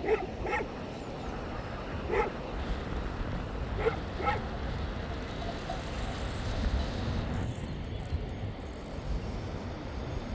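A dog barking in short single and double barks, about five in all, over a steady low rush of wind.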